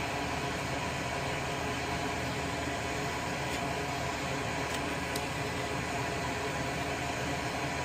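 Small electric blower running steadily at a soldering bench, an even rushing noise with a faint hum, broken by a few faint ticks in the middle.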